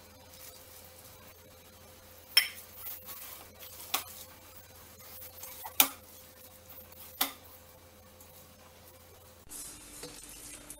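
Hand-mixing sliced onion and flour in a stainless steel bowl, with four sharp metallic clinks against the bowl, about one every second and a half.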